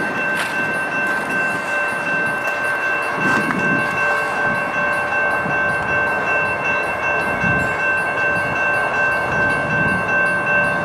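Freight train cars rolling past over the rails, their wheels rumbling and knocking irregularly over the track, with steady high-pitched tones held over the rumble.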